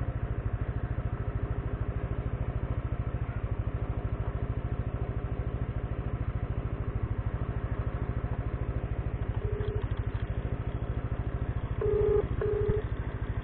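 Yamaha motor scooter engine idling with a steady, even putter. Near the end a phone on the handlebars gives a few short beeps of a call ringing out over its speaker.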